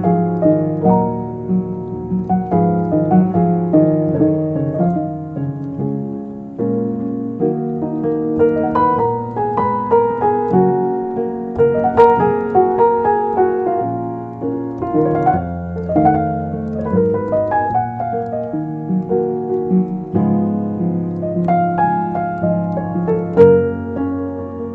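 Piano music: a melody with chords played on the piano as a soundtrack.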